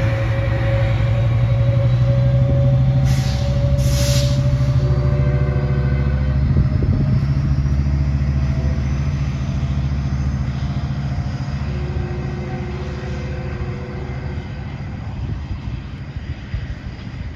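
Diesel locomotive of a Siemens Charger type under power, pushing a bilevel passenger train away from the platform. Its engine's deep rumble fades steadily as the train recedes. Two short hisses come about three and four seconds in.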